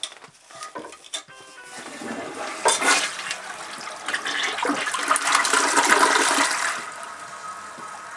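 Toilet flushing: a few sharp clicks, then a loud rush of water that builds from about two seconds in and drops near the end to the quieter steady hiss of the tank refilling.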